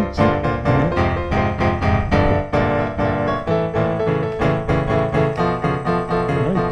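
Background music: a piano or electric-piano piece with quick, evenly spaced notes.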